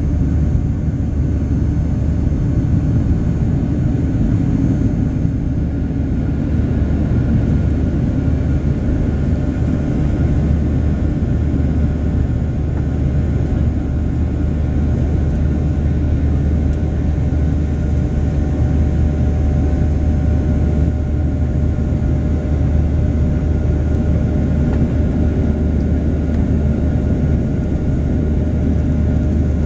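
Cabin noise of a Boeing 737-800 climbing out after takeoff: the steady drone of its CFM56 turbofan engines, heard from a seat beside the engine. There is a strong deep rumble under a few faint, steady whining tones.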